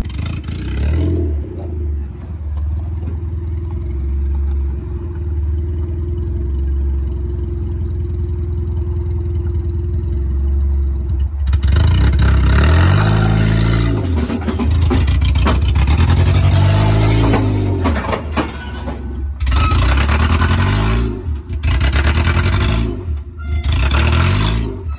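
Honda EF Civic wagon's four-cylinder engine idling steadily, then revving hard in several bursts with pitch rising and falling as the car is driven up the ramps onto a car trailer.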